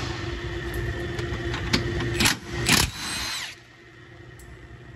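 Milwaukee cordless power tool spinning out a sway-bar bolt with a steady whine. Then a few sharp metal clanks just past halfway as the loose bolt drops and bounces on the concrete floor, the last clank ringing briefly.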